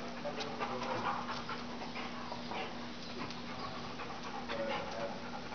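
German Shepherd panting, a quick irregular run of short breaths.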